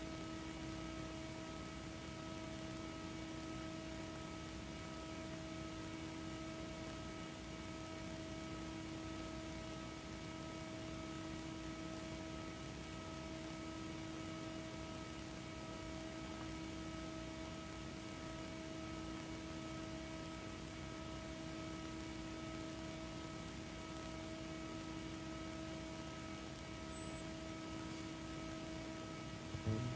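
Steady electrical hum and hiss from the live sound system, several unchanging tones held without a break, with no music or voices over it.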